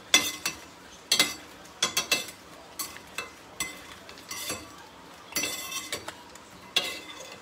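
Metal slotted skimmer clinking and scraping against a stainless steel frying pan as fried crackers are turned and lifted out of the oil. About one sharp clink a second, with a slightly longer scrape a little after five seconds in.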